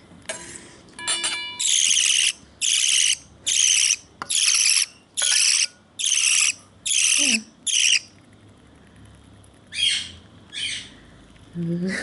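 Budgerigar chick food-begging between spoonfuls: a steady run of about eight harsh, raspy calls, roughly one every two-thirds of a second, then two more after a pause.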